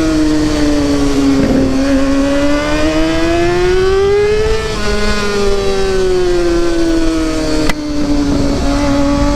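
Kawasaki ZX-6R inline-four engine with an aftermarket SC exhaust under way, its pitch climbing slowly for a few seconds and then easing back down. A sharp click sounds about three quarters of the way in.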